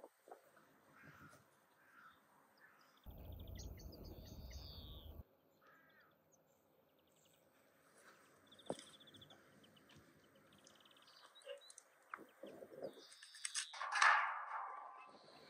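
Small birds chirping and trilling, with a brief low rumble about three seconds in and a few scattered clicks. Near the end, the loudest sound: pruning shears snipping dry sticks and the pieces clattering into an empty steel barrel.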